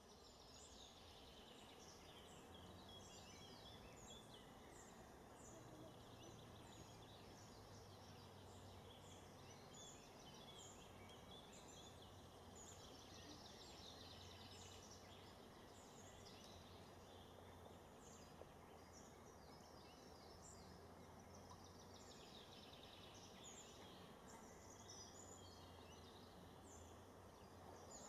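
Faint birdsong: many short, high chirps and quick whistled notes from several small birds, over a quiet background with a low steady hum.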